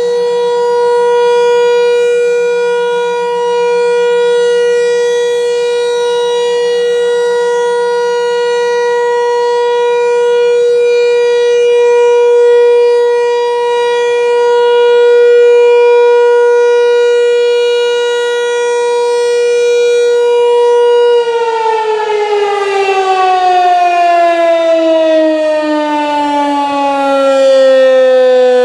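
American Signal T-128 electromechanical outdoor warning siren sounding a steady alert tone, its loudness slowly swelling and fading. About 21 seconds in it is switched off and winds down, the pitch falling steadily.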